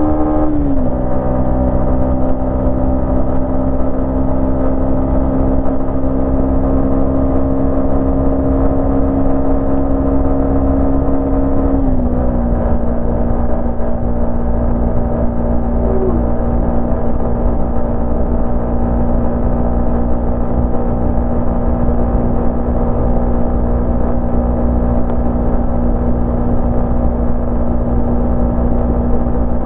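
Yamaha MT-15's 155 cc single-cylinder engine running at a steady cruise while riding. Its note steps down in pitch about a second in and again about twelve seconds in, then holds level.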